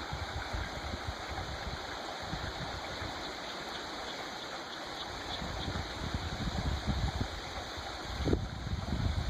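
Creek water running over rocks in a steady rushing babble, with irregular low bumps and rumbles on the microphone that grow heavier in the second half.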